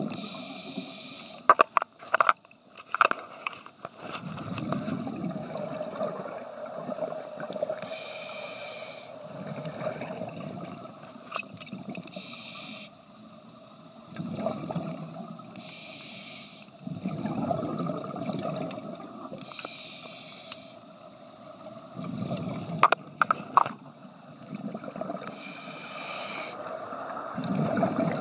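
Scuba diver breathing through a regulator underwater. Each inhalation is a hissing rush of air and each exhalation a low rumble of bubbles, the cycle repeating about every four seconds. A few sharp knocks come about two seconds in and again near the end.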